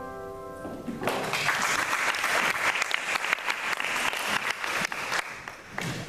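Applause: many hands clapping, starting about a second in and tailing off near the end, after the last piano notes die away.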